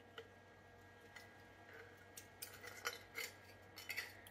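Faint scraping and light clicks of a butter knife working roasted marrow out of a marrow bone into a glass jar. The small scrapes and taps come every so often from about a second in, a little more often near the end.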